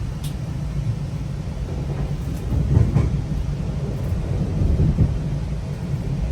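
Steady low rumble of a moving GO Transit passenger train heard from inside the coach, swelling a little twice, with a few faint clicks and knocks.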